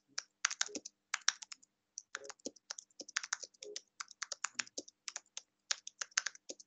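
Typing on a computer keyboard: quick, irregular key clicks, with a short pause about two seconds in.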